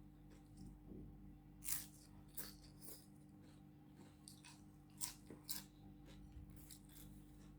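Close-up eating sounds: crisp food crunched and chewed, a handful of sharp crackly bites among quieter chewing.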